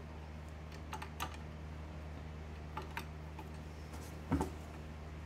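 A few faint, scattered clicks and taps of a wrench and metal parts being handled on the underside of a Singer 27 sewing machine, with a slightly louder knock about four seconds in, over a steady low hum.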